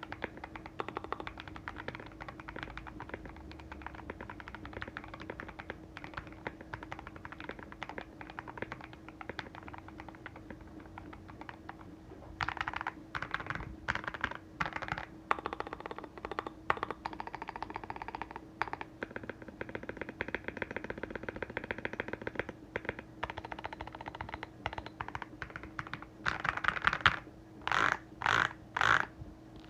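Typing on a MelGeek Mojo68 mechanical keyboard with factory-lubed Gateron Silver linear switches and a tape-modded case. Steady typing at first, then louder, faster clusters of keystrokes from about twelve seconds in, the loudest near the end, over a faint steady hum.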